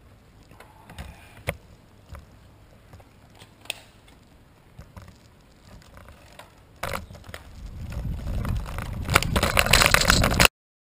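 A few sharp clicks while the road bikes stand at the crossing, then wind and road noise on a bike-mounted camera's microphone, building quickly as the bike rides off and cutting off suddenly near the end.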